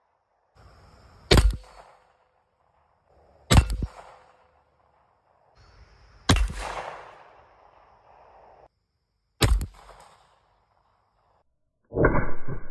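PM-63C pistol firing four single shots a couple of seconds apart, each a sharp crack followed by a short echo. Near the end a denser, longer loud sound begins.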